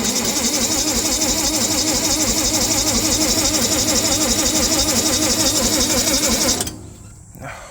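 Lincoln SA-200 welder's engine being cranked over by its electric starter with no choke, turning over in a steady rhythmic churn for about six and a half seconds without catching, then the starter stops abruptly.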